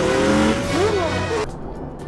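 Race-car engines running with music over them, cutting off abruptly about one and a half seconds in.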